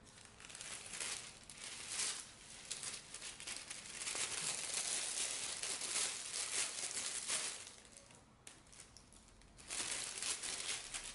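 Thin plastic food bag crinkling as it is opened and handled, in irregular bursts, with a lull about eight seconds in and another burst near the end.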